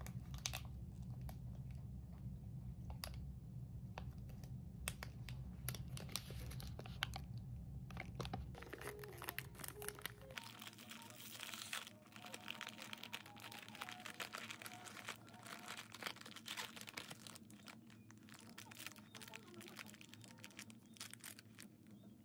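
Plastic snack wrappers crinkling and rustling as they are handled and opened, a dense run of small crackles. A low hum stops about ten seconds in.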